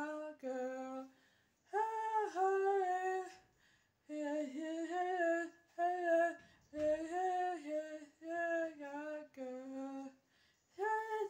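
A single voice singing a melody in several short phrases, with brief pauses between them.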